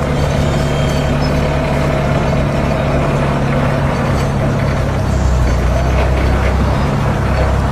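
Forklift engine running steadily as the machine is driven, its low hum deepening about five seconds in.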